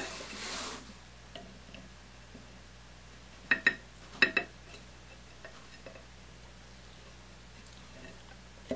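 Desoldering old wires from a brushless RC motor's terminals with a soldering iron: a brief hiss at the start, then two pairs of light, sharp clicks about three and a half and four seconds in, with a few faint ticks after.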